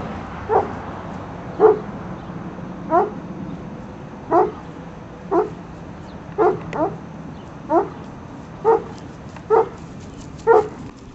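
A Briard barking in a steady series of single barks, about one a second.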